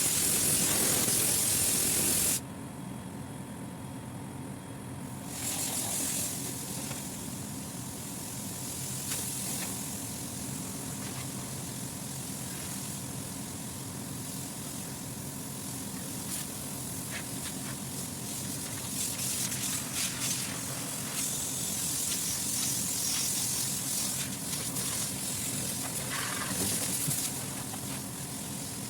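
Loud hissing spray that cuts off suddenly about two seconds in, then comes back softer and uneven in waves, over the steady hum of a running refrigeration condensing unit.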